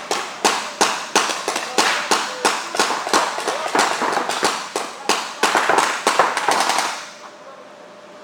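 Reball markers firing in a rapid string of sharp cracks, about three shots a second, stopping about seven seconds in.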